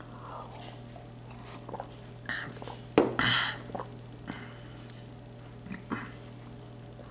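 Scattered mouth noises and short sharp breaths from someone whose mouth is burning from a very hot chilli gummy, with a louder click and hissy breath about three seconds in. A steady low hum sits underneath.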